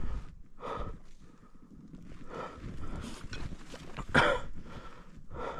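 Footsteps in snow with a person's heavy breathing: several irregular puffs of breath, the loudest about four seconds in.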